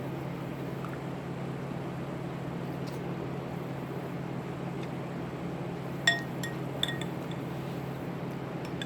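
Two sharp ringing clinks of hard tableware, one about six seconds in and a lighter one just under a second later, over a steady low background hum.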